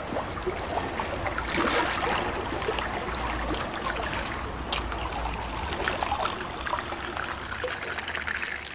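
Water trickling and splashing steadily, with a bubbly crackle through it, getting quieter near the end.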